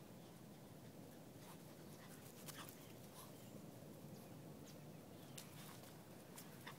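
Near silence: a faint, steady background hush with a scattered handful of soft, sharp clicks and ticks.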